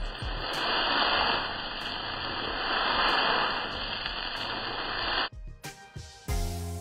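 Stir-fried chilli chicken with green pepper and onion sizzling in a hot pan: a steady, dense hiss that cuts off suddenly about five seconds in, after which background music plays.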